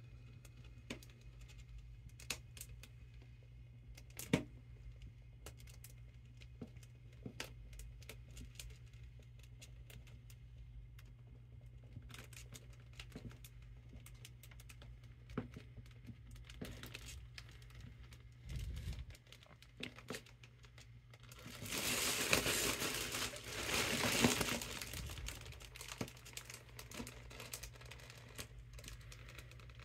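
Mylar foil balloon crinkling and crackling as a hand presses down on it to squeeze the air out, with scattered sharp crackles throughout and a louder spell of dense crinkling about two-thirds of the way through.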